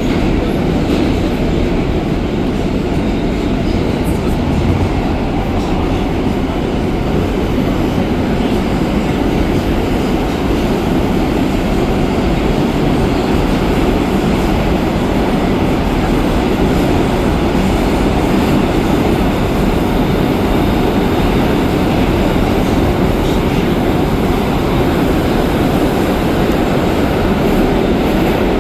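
R160A subway car running at speed between stations, heard from inside the car: a steady, even noise of steel wheels on rails and traction motors.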